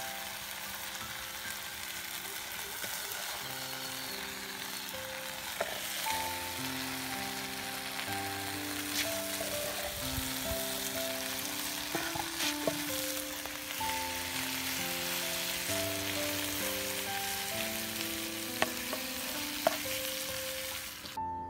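Food sizzling steadily in a hot pan, with a few sharp clicks and scrapes of a wooden spatula against the pan and plate as the chicken and potato are served. Soft background music plays underneath, and the sizzle cuts off suddenly near the end.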